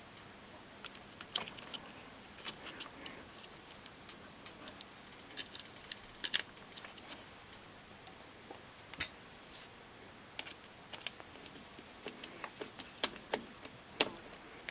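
Scattered small metallic clicks and taps of screws and a screwdriver being handled while fitting the washing machine's drain pump, with a few sharper knocks now and then.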